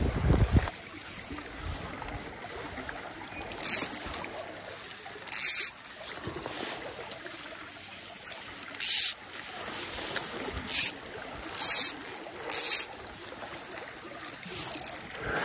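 Small creek running with a steady soft hiss, broken by about seven short, high zipping hisses as fly line is stripped in by hand through the rod guides.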